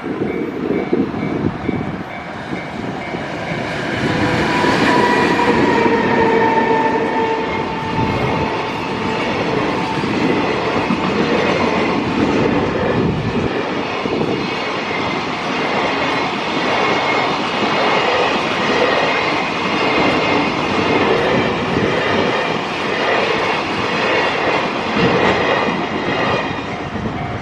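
An EH500 electric freight locomotive passes close by: its running whine drops slightly in pitch as it goes past about four to eight seconds in. After it comes the long, steady rumble and clatter of freight wagons rolling over the rails.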